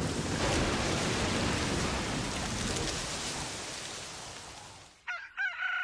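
Steady rain, fading away over about five seconds. About a second before the end a rooster starts to crow.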